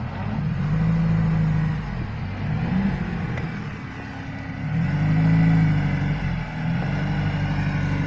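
Off-road 4x4 engine revving under load as it pushes through deep mud, surging about a second in and again around five seconds in.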